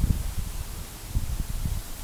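Wind buffeting the microphone in irregular low rumbling gusts, the strongest right at the start and again a little past the middle.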